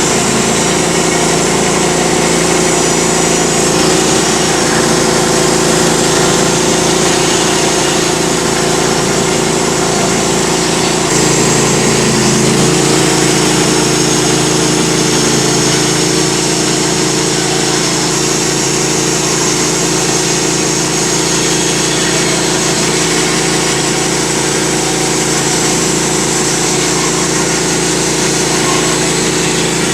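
Norwood HD38 portable bandsaw mill's gas engine running steadily while the band blade cuts through a pecan log, the engine note dipping briefly about twelve seconds in.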